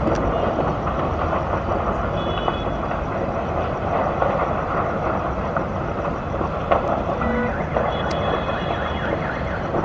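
Steady rumble of city traffic noise with faint short high beeps about two seconds in and again near the end.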